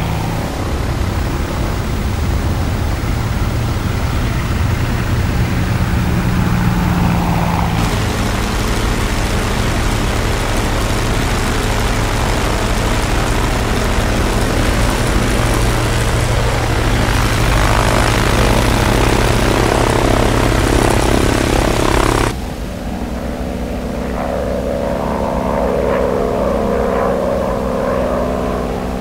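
Propeller aircraft piston engine droning steadily. The sound changes abruptly about 8 seconds in and again about 22 seconds in, and is quieter after the second change.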